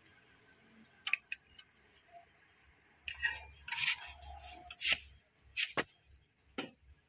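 Hand-handling noise as a rubber timing belt is worked onto the camshaft sprocket of a Hyundai i10 Era engine: rustling and scraping with several sharp clicks and taps of the belt and metal parts.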